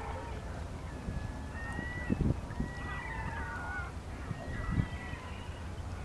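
Gulls calling: several drawn-out, slightly rising calls about a second each, over a steady low rumble. Two low thumps, about two and four and a half seconds in, are the loudest sounds.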